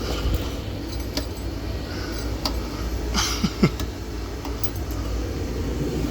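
Steady low hum of a gas furnace running with its blower motor not turning on, with scattered clicks and knocks of handling and a sharper knock about three and a half seconds in.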